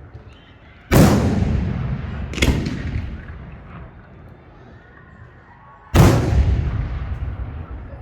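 Professional display fireworks (F4 aerial shells) going off close by: three heavy booms, about a second in, about a second and a half later, and about six seconds in, each trailing off in a long rolling echo.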